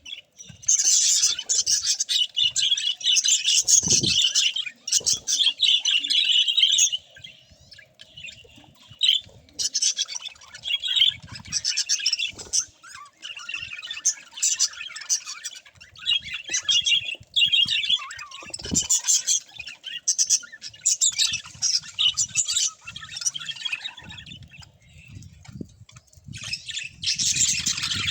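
Budgerigars chattering: fast, busy high-pitched chirps and squawks that come in loud spells with short lulls between them.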